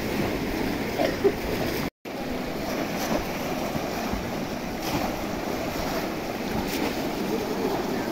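Steady splashing and sloshing of a large crowd wading and working basket traps in shallow muddy water, with some wind on the microphone. The sound drops out briefly about two seconds in.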